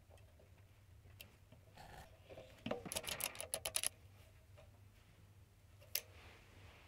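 Metal parts of a mini lathe compound slide being handled and fitted: a quick run of about ten small clicks and scrapes for about a second, then a single sharp click near the end.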